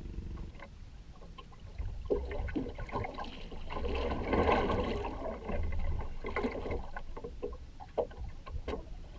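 Splashing water with scattered knocks and clatter, busiest about four to five seconds in, over a low rumble.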